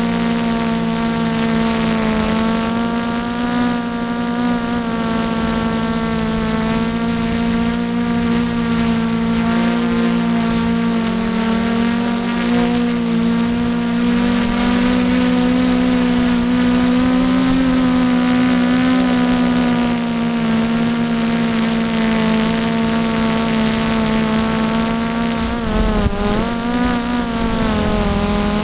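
Brushless motors and propellers of a Y6 multirotor drone buzzing steadily in flight, picked up by the camera on board, with a high electronic whine over the hum. The pitch drifts slightly up and down as the throttle changes, and near the end it wobbles briefly with a low thump.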